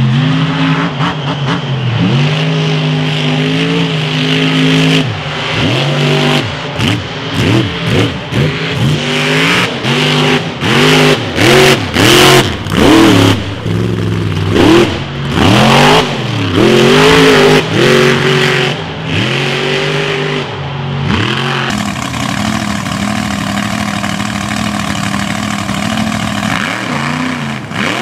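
Mud-bog trucks' engines revving hard while driving through a mud pit. Through the middle the engine pitch repeatedly surges up and drops back in quick bursts; near the end a steadier engine note takes over.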